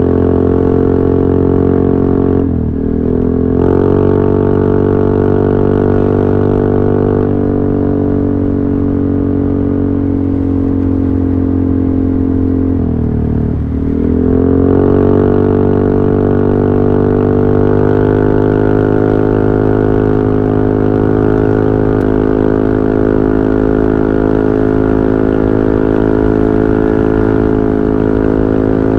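Yamaha XMAX 300 scooter's single-cylinder engine running through an aftermarket GP Racing exhaust at steady cruising revs while riding. Twice, about three seconds in and again near the middle, the revs drop briefly and climb back as the throttle is eased off and reopened.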